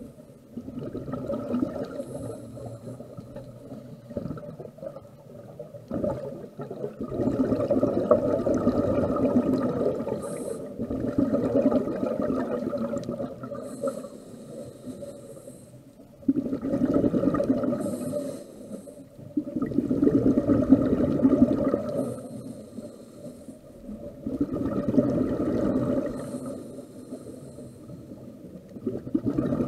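Scuba regulator breathing underwater: a loud bubbling exhalation every four to five seconds, with a fainter hiss from the inhalation in between.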